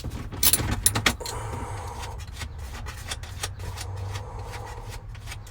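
Light metallic clicks and clinks of a tool working out the 8 mm screws that hold a trunk light. They come thickest in the first second, with a few more later, over a steady low hum.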